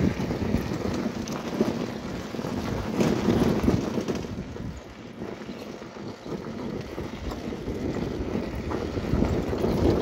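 Wind buffeting the microphone on a moving motorcycle, with the motorcycle running underneath; it eases for a moment around the middle.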